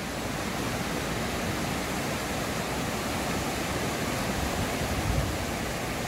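A fast mountain river rushing over rocks in white-water rapids: a steady, dense rushing noise of churning water close by.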